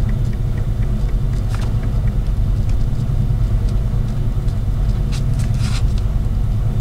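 Steady low background rumble, with faint scratching of a pen writing on paper.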